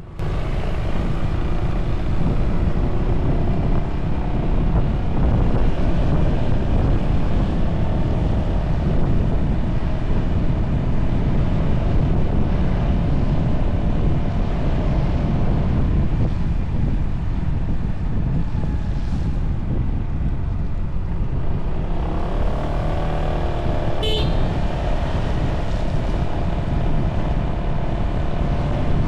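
Yamaha Tricity 300 scooter being ridden, heard through the camera's own microphone on the handlebar: heavy wind rumble over the steady drone of its single-cylinder engine. The engine note shifts in pitch about 22 seconds in, with a short click just after.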